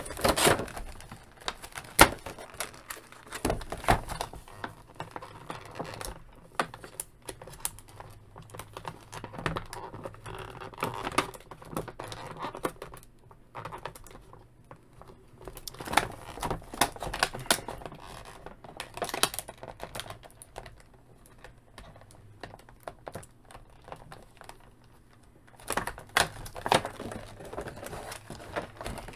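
Clear plastic action-figure packaging, a plastic bag and a clear plastic tray, crinkling and clicking irregularly as hands work the figure out of it, with quieter stretches in between.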